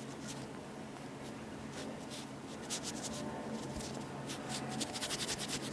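Fingertips rubbing and dabbing primer onto the skin of the face and neck: faint, soft strokes that come thicker near the end.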